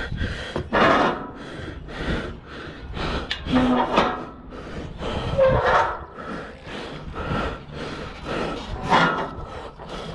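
An obstacle racer's hard, repeated breathing close to the microphone, mixed with scattered knocks and rustles.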